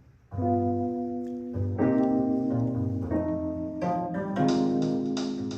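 Instrumental music from Klipsch La Scala horn speakers driven by a Decware SE84UFO2 tube amplifier, with held chords and a run of struck notes, starting about a third of a second in.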